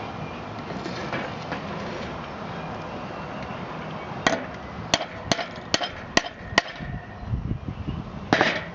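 Sharp metal taps on a pin tool driving out a worn drive-shaft pin: six quick taps about a third of a second apart, then a single louder knock near the end.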